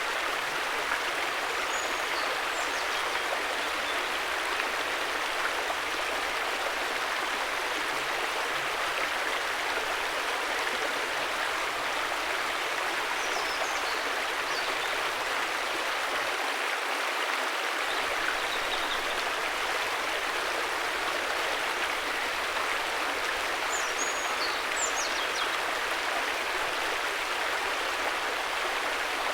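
River water flowing, a steady even rush without low rumble. Faint short high chirps come through three times.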